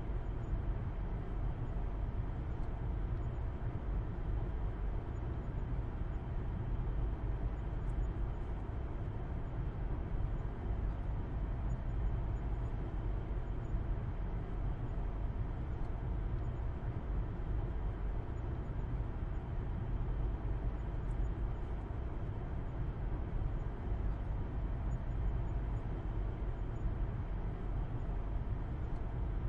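Steady low rumble of a car driving at a constant speed, heard from inside the cabin: engine hum and road noise, with no changes.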